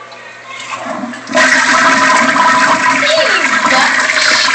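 Toilet being flushed: a loud rush of water starts suddenly about a second and a half in and keeps going.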